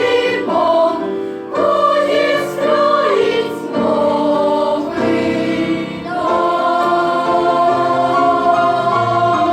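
Choral singing with musical accompaniment, the voices moving between notes and then settling into a long held chord about six seconds in.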